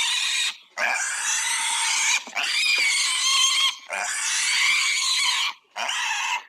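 Pig screaming in long, shrill squeals, one after another with brief breaks between them: about five in all.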